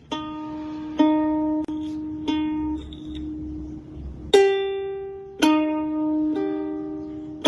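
Music: a slow melody of single plucked-string notes, ukulele-like, a new note about every second, each ringing on until the next.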